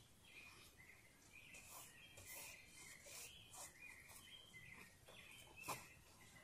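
Near silence with faint, high bird calls that waver and step in pitch, and one sharp click near the end.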